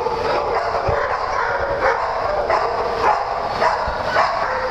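Small dogs barking and yipping over and over, with high whining between the barks; the barks come about every half second toward the end.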